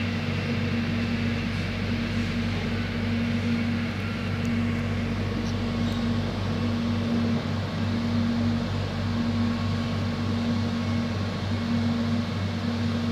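Cabin noise inside an airport rail link electric train pulling into a station: a steady low hum over an even rumble, with a higher droning tone that breaks off and returns several times.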